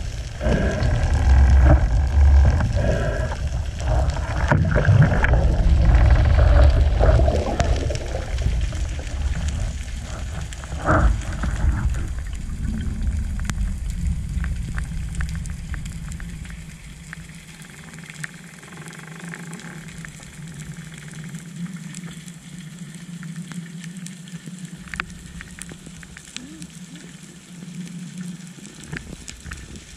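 Underwater sound picked up through an action camera's waterproof housing: a loud low rumbling of moving water for about the first twelve seconds, with one knock about eleven seconds in. It then eases to a quieter low hum with faint scattered crackling ticks.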